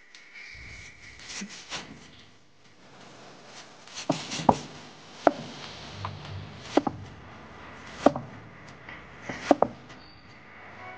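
Chinese cleaver slicing smoked cured pork on a tree-stump chopping block. The blade knocks sharply into the wood at the end of each slice, at irregular intervals of roughly one a second from about four seconds in, after a few softer cuts.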